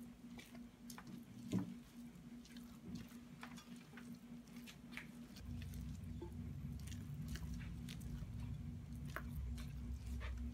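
A silicone spatula folds thick muffin batter and shredded carrot in a glass bowl: soft squishing with scattered light taps and scrapes against the glass. A low rumble comes in about halfway through, under a faint steady hum.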